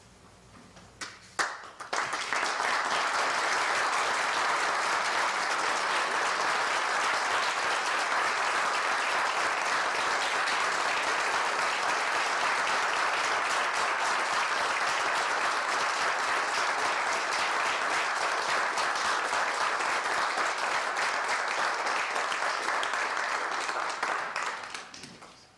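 Audience applauding: a few scattered claps, then full applause about two seconds in, holding steady and dying away near the end.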